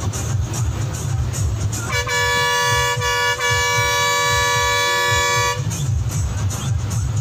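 Bus air horn sounding one long blast of about three and a half seconds, starting about two seconds in, with a brief break partway through. The horn gives two tones at once, over the low rumble of the bus and music playing.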